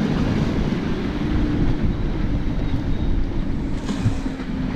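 Wind buffeting the microphone and breaking waves rushing along a sailing yacht's hull as she drives through rough seas, as a steady, loud, low roar.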